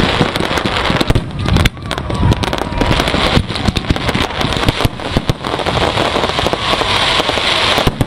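Fireworks going off in quick succession: a dense, continuous run of bangs and crackling bursts, with brief lulls.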